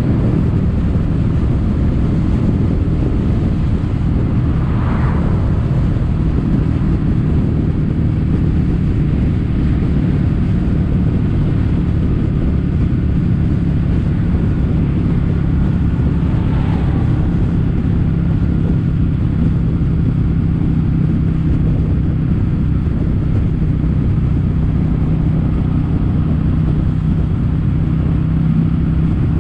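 Kawasaki W800's air-cooled parallel-twin engine running steadily while the motorcycle is ridden, its exhaust through Yamato stainless-steel Cabton-style silencers. Two brief higher sweeps pass over it, about five seconds in and just past the middle.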